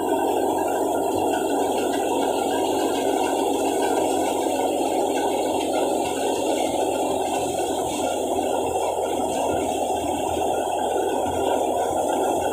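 Tractor-driven wheat thresher running steadily while wheat straw is fed into it, a continuous mechanical noise with no change in pace.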